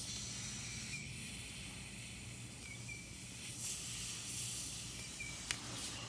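Air hissing steadily out of a tire puncture through a bubble-gum plug, a little louder about four seconds in: the gum is not sealing the leak. A sharp click near the end.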